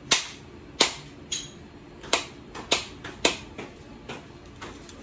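Sharp clicks and cracks from a metal seafood cracker working at the hard shell of a boiled crab claw: about six, roughly half a second apart, then only faint ticking near the end.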